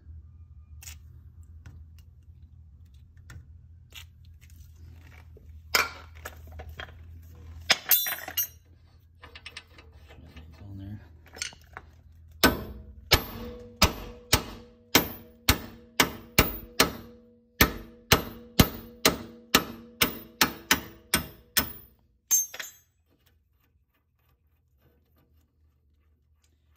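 A small hammer strikes a lug nut threaded onto a front wheel stud of a 2000 Mustang GT, driving the stud out of the hub. The blows are sharp and ring of metal, about two a second for some ten seconds: the stud is seized in the hub, in there since the car was new. A few light clicks and knocks come before the hammering.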